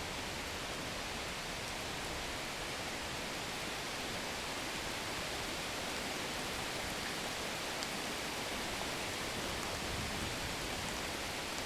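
Steady, even hiss of background noise with no distinct events: the ambient 'silence' of a sound-effect track.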